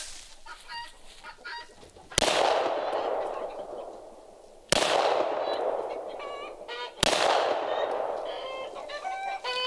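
Three shots from a Jericho 941 pistol, about two and a half seconds apart, each echoing and fading slowly. Chickens cluck between the shots.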